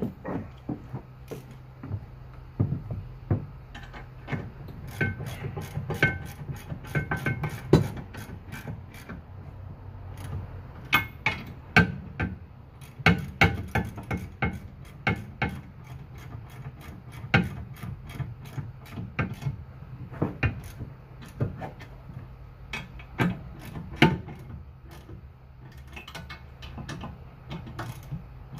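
Hand socket ratchet clicking in quick runs as the bolts fastening a fifth-wheel hitch's legs to its centre section are snugged up, with short pauses between runs and an occasional metal clink.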